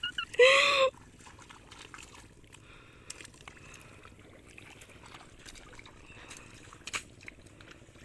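Faint sloshing and trickling of water and mud in a flooded rice paddy as seedlings are pressed into the mud, with a few small splashes. A short loud vocal call, one drawn-out voiced cry, comes about half a second in.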